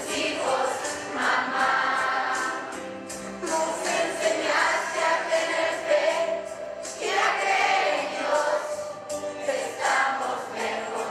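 A choir of children and young people singing a song together, with long held notes.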